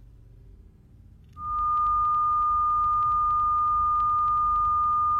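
A steady, high-pitched electronic beep tone cuts in about a second and a half in and holds unbroken, over a low rumble, with faint, evenly spaced ticks above it.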